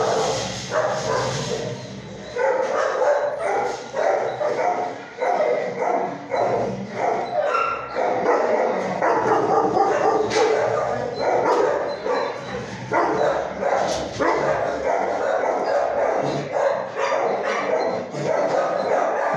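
Many shelter dogs barking at once, a continuous din of overlapping barks and yips.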